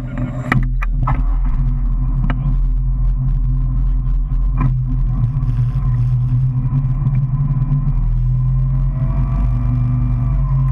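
Motorboat engine running steadily under way, pulling an inflatable tube, with water churning in the wake behind it. A few sharp knocks in the first five seconds.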